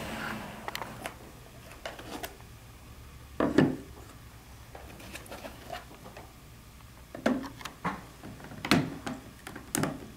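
Handling noise from a handheld particle counter and its plastic cradle base on a wooden table: a brief rustle at the start, scattered clicks, one solid knock about a third of the way in, then a run of clicks and knocks near the end as the handset is pushed down into its cradle.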